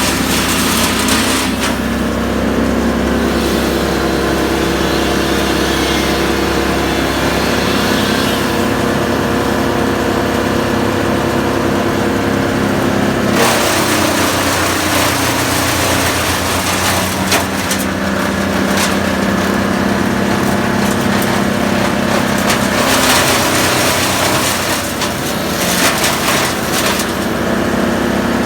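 A small engine running throughout, its speed and tone shifting a couple of times.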